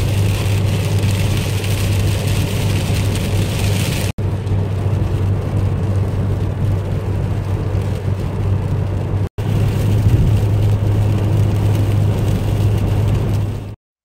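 Steady road and engine drone of a car heard from inside the cabin while driving, with a low hum under a broad hiss. It is cut off abruptly for an instant twice and stops just before the end.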